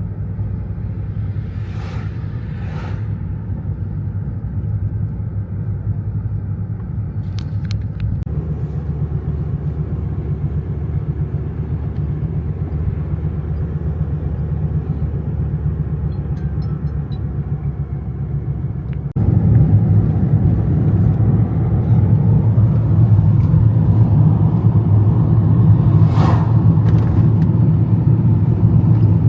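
Engine and road rumble of a moving car. It becomes abruptly louder about two-thirds of the way through.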